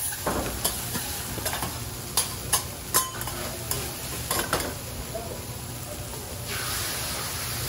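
Cabbage, bean sprouts and noodles sizzling on a hot steel teppan griddle. Metal spatulas click and scrape against the plate several times in the first half, then a steady sizzle.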